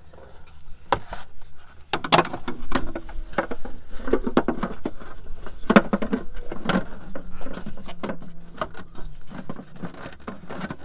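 Plastic CVT clutch cover of a Can-Am X3 being worked by hand into place over the clutches: an irregular run of knocks, clicks and plastic scraping.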